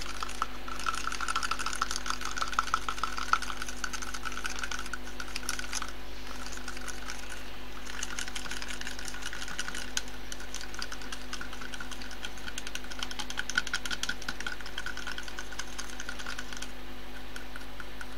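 Small metal stirrer whisking a thick aloe vera gel scrub in a small plastic beaker: rapid, continuous clicking and scraping against the cup's sides, with a couple of short pauses.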